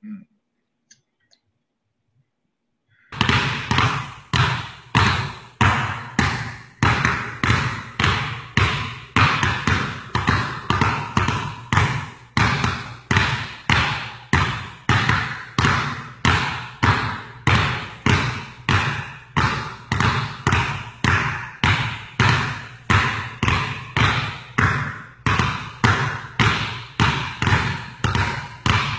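Basketballs dribbled on a gym floor, several balls bouncing together in a steady rhythm of roughly two bounces a second, each with a short ringing echo. The dribbling starts about three seconds in, after near silence.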